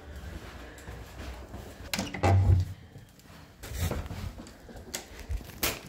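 Several knocks and clunks. The loudest, a heavy thump with some clatter, comes about two seconds in, another about a second and a half later, and a short sharp knock near the end.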